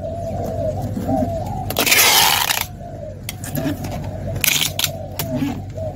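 Packing tape ripping off a handheld tape gun as it is run across a cardboard box: one long tearing screech about two seconds in and a shorter one near the end, with a few small clicks of the dispenser between.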